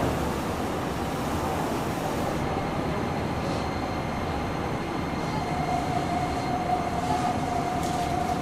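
Nagoya City Subway 6050 series train heard from inside the car, running with a steady rumble. A steady whine joins in about five seconds in.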